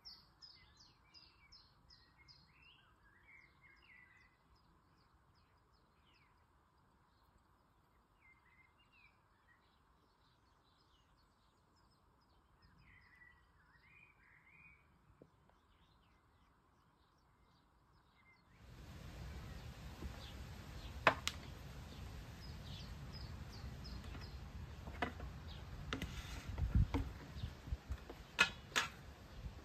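Small birds chirping over a faint outdoor background. About two-thirds of the way through, the sound switches to a louder outdoor ambience with birds still chirping and a few sharp knocks and clatters from plastic bowls being handled on a wooden table.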